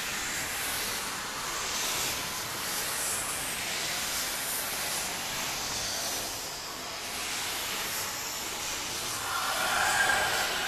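Steady rushing, hissing sound-effect noise, with a shrill screeching tone rising over it near the end.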